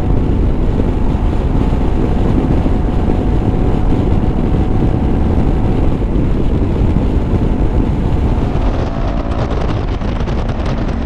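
Wind rushing on the microphone while riding a Honda ADV350 scooter, over a steady rumble of engine and road noise. A faint steady tone fades out about halfway through, and a few low steady tones come in near the end.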